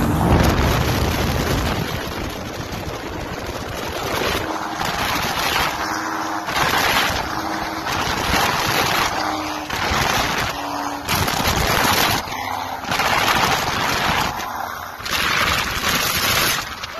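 Airboat's engine and caged propeller running at high power, a loud rushing noise that from about four seconds in surges and dips roughly once every second or so.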